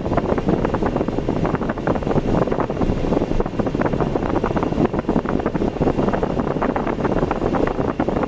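Steady wind buffeting on the microphone over vehicle road noise, while travelling along a road.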